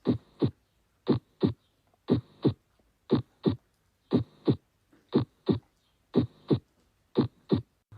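Heartbeat played back as a lub-dub: eight pairs of short thumps, each pair about a third of a second apart, at about one pair a second. The gaps between the pairs are quiet.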